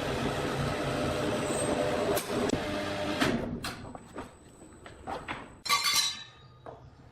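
An engine running steadily, which cuts off about three and a half seconds in. A few separate knocks follow, then a loud clatter about six seconds in.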